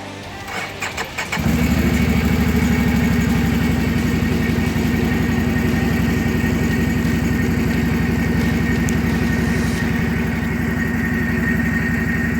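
ATV (quad) engine cranked briefly, with a few quick turns, then catching about a second and a half in and running steadily.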